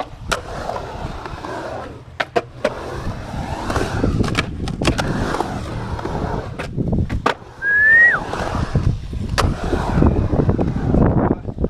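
Skateboard wheels rolling and carving on a concrete bowl, with several sharp clacks of the board and trucks striking the edge. A brief high squeal comes about two-thirds of the way through.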